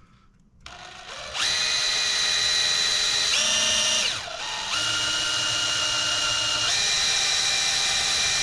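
DeWalt 20V cordless drill spinning a step bit against an aluminum intake tube: a steady whine that starts about a second in, slows and dips briefly a little after the middle, then runs steadily again. The step bit is dull and barely cuts the aluminum.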